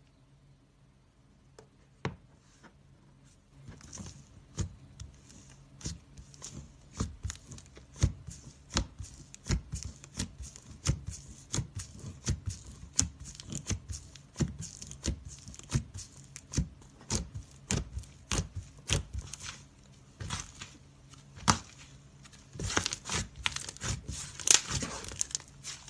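Slime being squeezed and worked by hand, making sharp wet clicks and pops about one or two a second, starting a few seconds in. Near the end it turns to a denser crackling, the loudest part.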